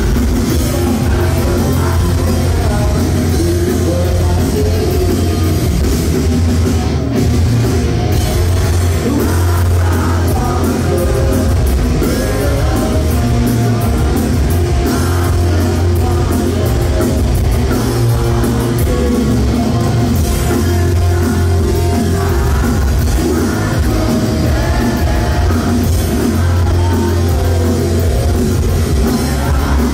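Heavy metal band playing live: distorted electric guitars, bass and a drum kit with a male singer, loud and unbroken.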